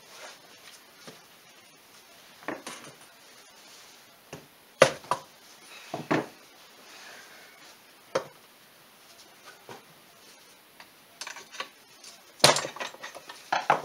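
Hand tools clinking and knocking against a metal case-splitter tool and an engine crankcase, with a few separate sharp knocks spaced a second or two apart, then a quicker run of clinks near the end as a wrench is put to the splitter.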